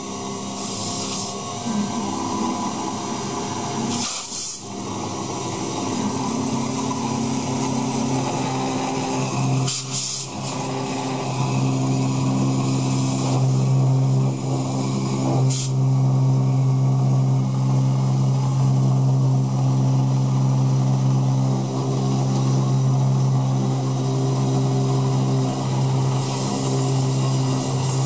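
DIY mini mill with a treadmill motor spindle running steadily while a small end mill cuts a profile into aluminum plate, a steady hum that grows louder about ten seconds in. Short hissing blasts from a compressed-air nozzle clear the chips several times.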